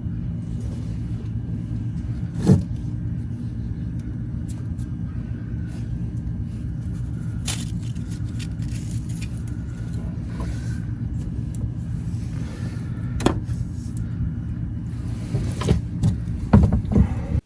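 A vehicle engine running steadily with a low, even rumble, with two sharp clicks, one about two and a half seconds in and one about thirteen seconds in.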